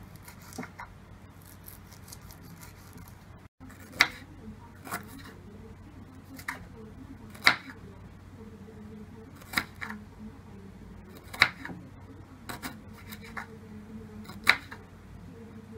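Kitchen knife slicing lemongrass stalks on a wooden cutting board: sharp chops of the blade hitting the board, about one a second and unevenly spaced.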